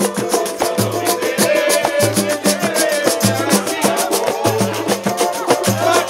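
Live samba played by a roda: small strummed strings such as cavaquinho over a deep hand-drum beat that lands about once a second, with rapid high percussion ticking steadily.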